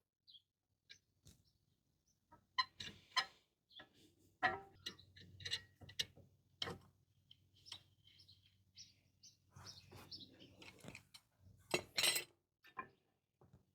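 Scattered small metallic clicks and clinks at irregular intervals, from brake parts and hand tools being handled during a brake job, over a faint steady hum.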